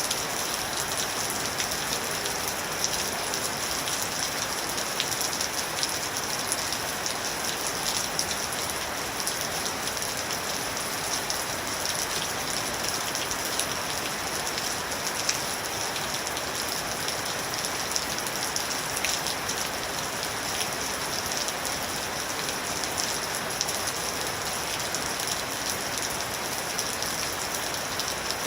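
Steady rain falling, with many small drop ticks over an even hiss.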